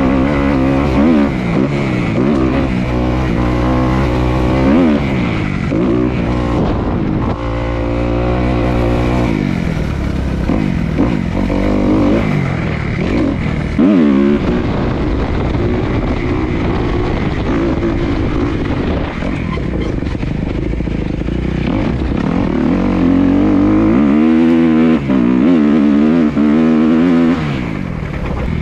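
Small off-road engines revving, the pitch climbing and dropping over and over with throttle changes.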